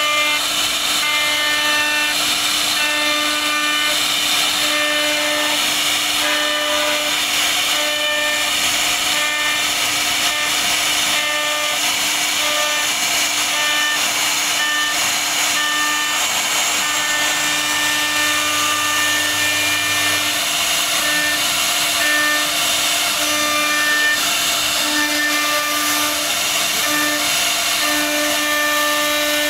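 CNC router spindle running at a steady pitch while its carving bit cuts into a wooden board, with a constant cutting hiss. Short whining tones at shifting pitches come and go over it.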